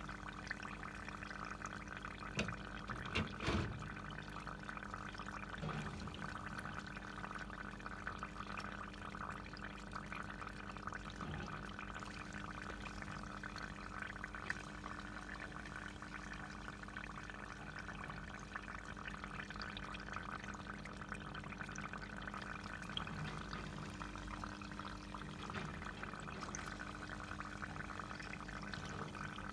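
Faint steady trickle of water under a low, even hum, with a few light clicks and knocks between about two and four seconds in.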